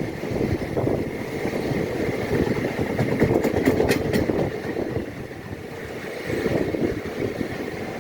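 A push-pull passenger train's electric locomotive, the ÖBB type nicknamed 'Alpenstaubsauger' for its loud cooling blowers, pulls into a station. There is a steady rumble of wheels and a blower hum, with a few sharp clicks about three and a half seconds in.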